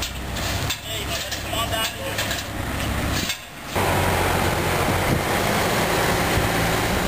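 Outdoor street ambience with faint distant voices. About three and a half seconds in it cuts to a steadier rushing noise with a low hum, like wind on the microphone.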